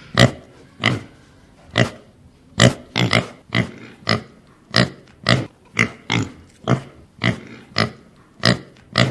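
Domestic pig grunting: a steady series of short, sharp grunts, about two a second.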